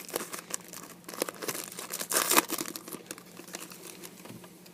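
Crinkling and rustling of a pack of football trading cards and its wrapper being handled, in many short quick crackles, loudest a little after two seconds in and growing fainter toward the end.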